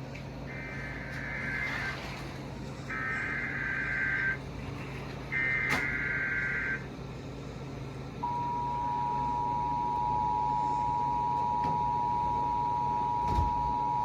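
Emergency Alert System header: three short bursts of screeching data tones, followed about eight seconds in by the steady two-tone EAS attention signal, which opens a severe thunderstorm warning.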